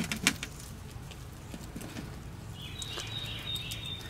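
A few sharp knocks near the start as a stainless steel mesh grill basket is tipped and tapped against a metal baking tray to empty out grilled vegetables, followed by a faint high steady tone over a low background hum.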